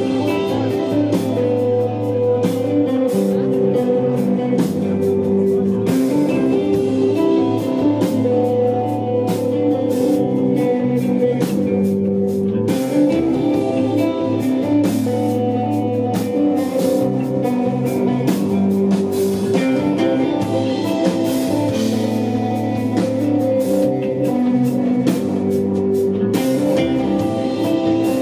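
Live desert rock band playing: sustained electric guitar melody over a steady bass line and drum kit with frequent cymbal hits.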